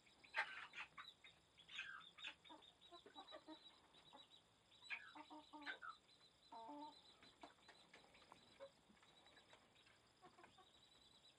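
Chickens clucking: scattered short clucks and calls, busiest in the first half and thinning out toward the end, faint overall.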